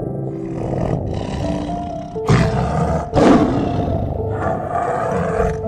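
Tiger roaring about five times in a row, the two loudest roars in the middle, over soft background music with sustained notes.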